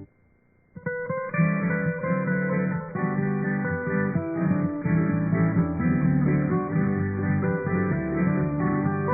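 Acoustic guitar music; a new piece starts about a second in, after a brief near-silent gap.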